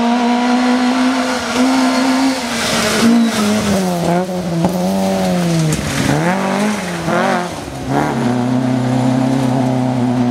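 Rally car's engine at high revs as it comes through a wet gravel forest stage and passes, the engine note dipping and rising several times in the middle with bursts of tyre and spray hiss, then settling to a steady note as it pulls away.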